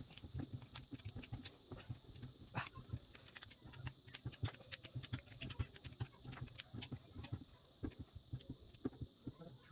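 Irregular light clicks and taps, several a second, over a faint steady low hum.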